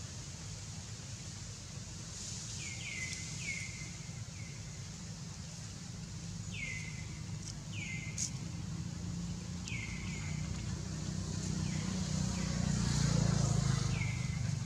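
Outdoor ambience: short falling chirps, bird-like, come in small groups of two or three over a steady low engine hum from passing traffic, which swells near the end.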